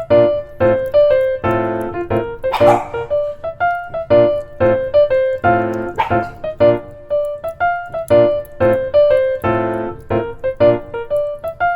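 Background music: a light, bouncy keyboard melody of short, evenly paced piano notes. Two brief noisy sounds cut through it, about two and a half and six seconds in.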